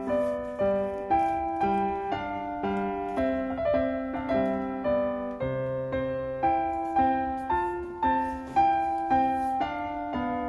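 Background piano music: a calm melody of single struck notes, about two a second, each fading before the next.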